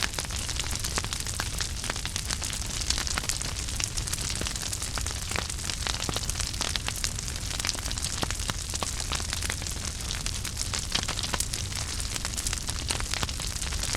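Wood fire crackling in a fireplace: a dense stream of small pops and snaps over a steady hiss and a low rumble of the flames.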